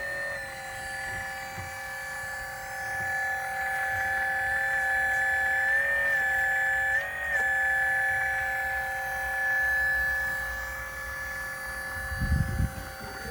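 Brushless-motor-driven hydraulic pump of a 1/12-scale PC360 RC excavator whining steadily at several fixed pitches, the pitch rising briefly twice, about six and seven seconds in. A few dull thumps near the end.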